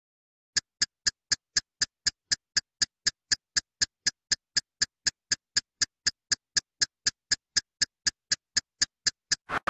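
Clock ticking sound effect: sharp, evenly spaced ticks, about four a second, starting suddenly after digital silence.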